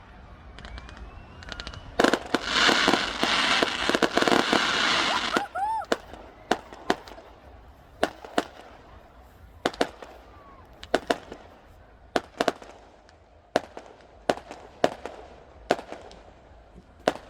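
Fireworks going off: a loud stretch of dense crackling about two seconds in that lasts a few seconds, then a run of single sharp bangs, roughly one every second or so.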